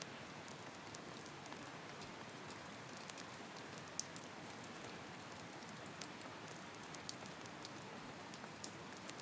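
Steady rain, a soft even hiss with scattered light ticks of drops.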